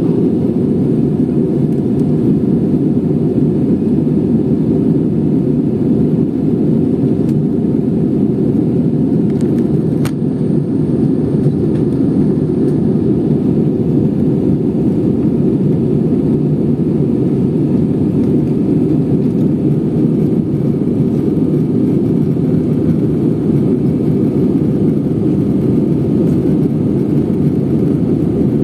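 Steady roar of an Airbus A320-214's twin CFM56-5B turbofan engines and the rushing air, heard inside the cabin after takeoff.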